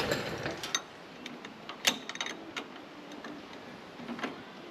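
Scattered light metallic clicks and taps of a hand tool working at a carburetor mounting nut, loudest just under two seconds in.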